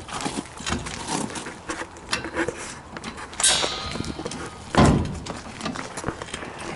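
Irregular metal clinks and knocks of work on a truck's rear dually wheel, with a short hiss about three and a half seconds in and a single heavy thud about five seconds in.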